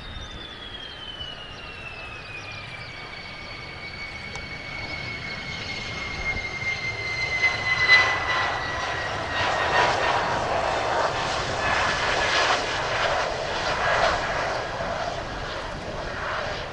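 Mitsubishi F-2 fighter's single turbofan engine: a high whine that falls in pitch during the first few seconds as the jet goes by. About halfway through, louder, rough, crackling jet exhaust noise takes over and stays loud through most of the rest.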